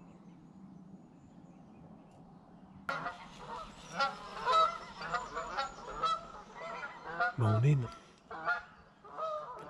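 A faint steady hum for about three seconds, then waterfowl calling, many repeated calls overlapping one another.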